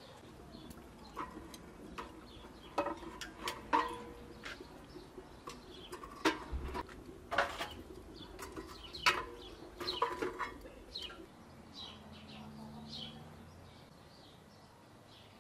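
Metal clinking and knocking, a couple of dozen sharp strikes, some ringing briefly, bunched in the first ten seconds or so. Birds chirp in the background.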